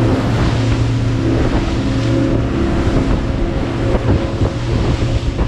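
Boat engine running steadily while underway, its even hum under a rush of wind on the microphone.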